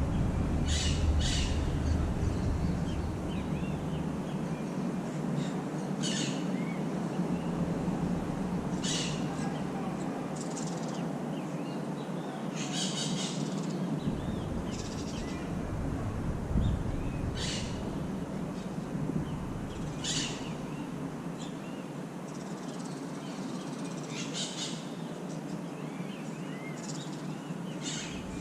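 Birds calling: short, harsh calls every two or three seconds, over a steady low background rumble.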